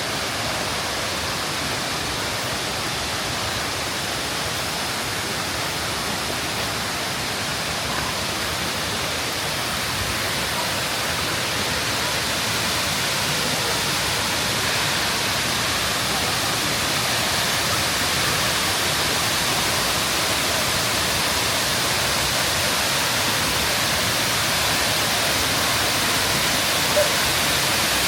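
Rushing water of a jungle waterfall and its stream: a steady, even rush that grows slowly louder.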